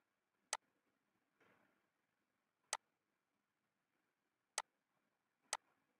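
Computer mouse clicking: four single clicks, spaced one to two seconds apart, against near silence.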